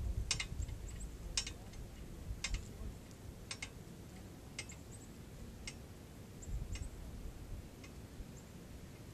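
Chains and snap hooks clinking as a hanging AR-500 steel target plate swings after a hit: a sharp metallic tick about once a second, growing fainter. Low wind rumble on the microphone underneath.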